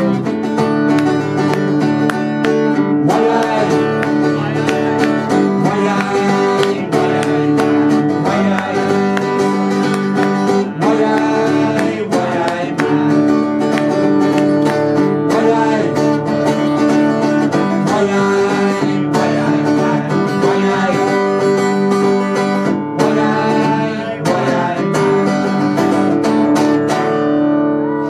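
Two acoustic guitars playing a folk song together.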